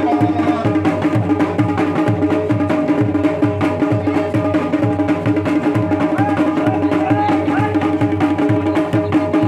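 Kumaoni folk music played for a Pandav dance: a fast, even drumbeat under a held melody line that wavers now and then.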